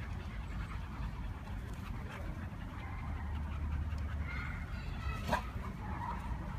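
Siberian huskies at play, panting, with a few short high whines and yips from about four seconds in and a sharp click just after five seconds.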